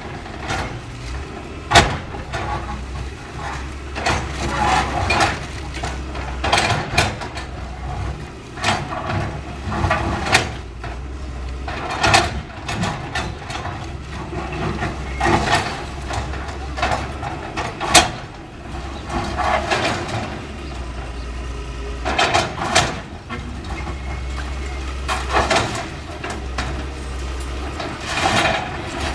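CAT 325L hydraulic excavator's diesel engine running steadily while the machine tears down a building: repeated crunching and crashing of breaking debris every few seconds, with a few sharp bangs, the loudest about 2 seconds in and about 18 seconds in.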